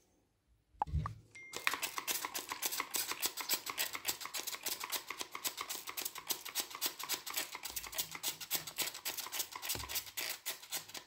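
Hand trigger spray bottle pumped again and again in a fast, even run of short hissy squirts onto a brass vase held in a cloth. The run starts about a second and a half in, after a soft handling bump.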